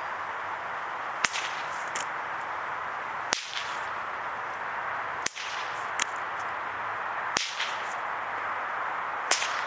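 Bullwhip cracked five times in a steady rhythm, one sharp crack about every two seconds, each followed by a fainter snap.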